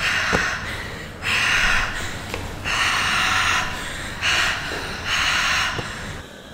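A person breathing heavily, five loud, ragged breaths each under a second long, over a low rumble.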